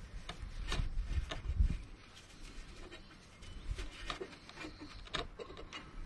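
Braided rope rustling and rubbing as hands tie and tighten a clove hitch around a pole, with scattered small clicks of handling against the wooden surface. A few low rumbles of wind on the microphone in the first couple of seconds.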